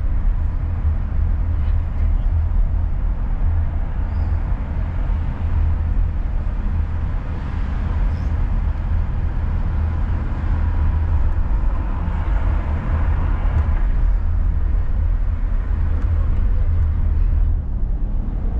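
A car driving: a steady low rumble of engine and road noise, with a swell in the higher road noise for a couple of seconds after the middle.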